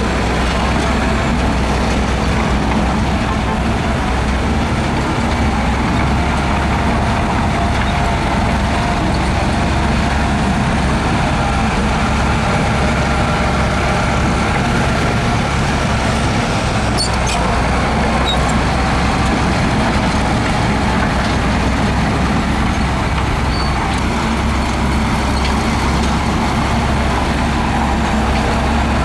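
Heavy diesel construction machinery running steadily under load, with a few faint metallic clicks about two-thirds of the way through.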